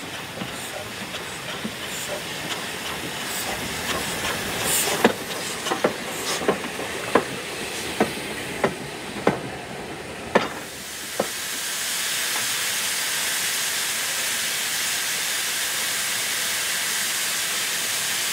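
Steam locomotive: a run of sharp clacks, a little more than one a second, over a low rumble, then from about eleven seconds in a steady, loud hiss of escaping steam.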